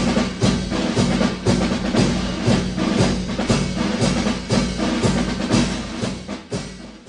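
Outro music with a steady drum beat, about two beats a second, fading out near the end.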